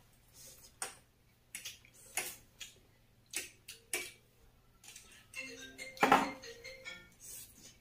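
Cutlery clicking and scraping against ceramic plates in scattered, irregular taps, with the loudest clatter about six seconds in.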